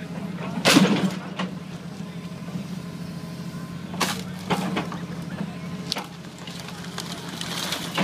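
John Deere excavator tearing into a building's wood frame: cracking and crashing debris, the loudest crash about a second in and more around four seconds and near the end, over the steady drone of its diesel engine.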